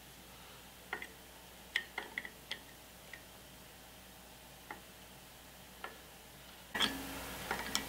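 Scattered light metallic clicks and taps of a compressor pump's valve plate being rocked and worked loose from the cylinder head by hand.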